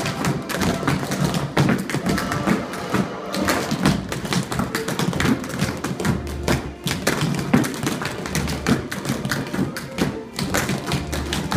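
Tap shoes striking a hard studio floor as several dancers tap a routine together: a fast, uneven stream of sharp clicks and heavier strikes. Recorded music with a steady bass plays underneath.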